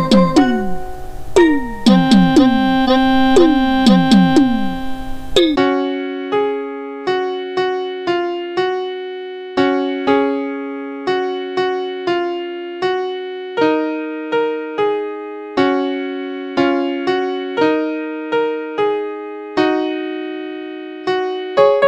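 Synthesized keyboard music. For the first few seconds, each note drops in pitch over a hiss; then it changes abruptly to a clean electric-piano melody of evenly paced notes, about two a second.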